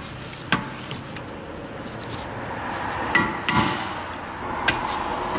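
Steel hand tools clinking and scraping against the rusted parking-brake lever of a rear brake caliper as it is pried loose. There is a sharp knock about half a second in, a cluster of ringing metallic clinks around three seconds in, and another click near the end, over a steady hiss.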